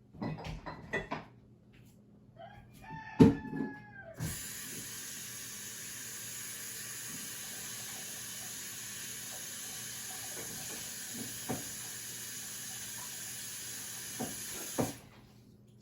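Water running steadily from a tap for about ten seconds, filling a container, then shut off suddenly near the end. Before it starts there are a few knocks and a short high squeal with a sharp knock.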